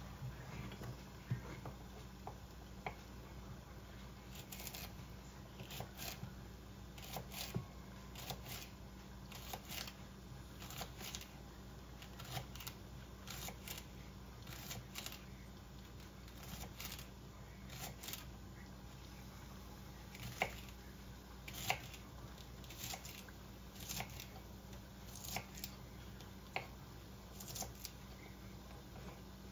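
Irregular light clicks and taps of kitchen utensils being handled, one or two a second, over a low steady hum.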